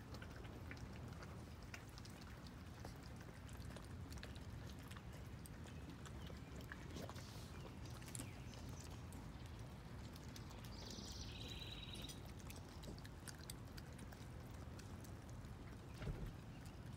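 Baby raccoons eating applesauce from a saucer: faint wet lapping and smacking with many small clicks of claws and snouts on the dish. A short high two-note call partway through and a single knock near the end.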